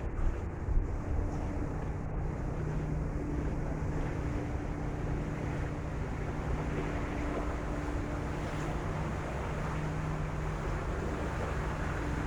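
Wind on the microphone and the rush of bay water aboard the Staten Island Ferry, over the ferry's low engine hum, which swells and fades. Two brief bumps about a second in.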